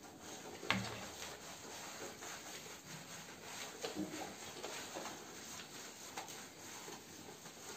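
Hands working shampoo lather into a wet boxer dog's coat: soft, continuous wet rubbing and squishing of foam in a small tiled shower, with one brief sharper sound about a second in.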